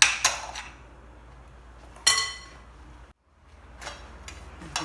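Kitchen utensil clinking against a dish while aubergines are hollowed out: a couple of sharp clinks at the start, a ringing clink about two seconds in, and lighter taps near the end.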